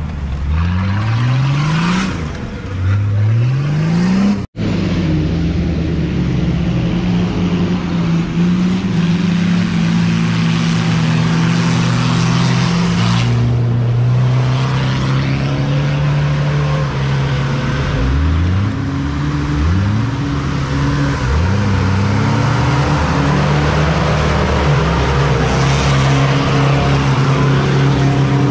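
4x4 off-road engines revving hard under load while driving through deep mud, the pitch rising again and again in the first few seconds. The sound cuts off abruptly about four and a half seconds in, then a single engine holds high revs with shifts in pitch, rising again in a few quick revs a little past the middle.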